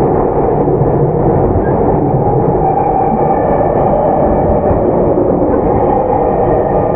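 Onboard running sound of a Tokyu 9020-series electric train between stations: a steady rumble of wheels on rail, with a faint whine from the traction motor drive coming in about two and a half seconds in.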